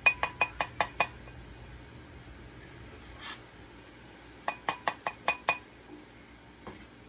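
A metal foam skimmer tapped rapidly against the rim of a ceramic bowl to knock the skimmed jelly foam off, giving bright ringing clinks. Two runs of about six taps each, one at the start and one about four seconds later.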